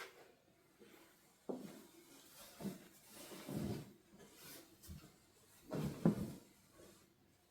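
Household handling noises in a small room: a few soft knocks and rubbing sounds, the loudest about six seconds in.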